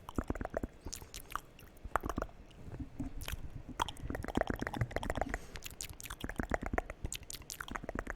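Close-miked ASMR mouth sounds: a dense, irregular run of wet clicks, smacks and tongue noises.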